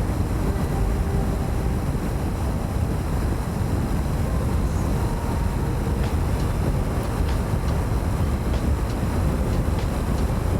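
Steady ride noise from a Honda CB300R motorcycle under way: its single-cylinder engine running at a steady speed under a low rush of wind and road noise.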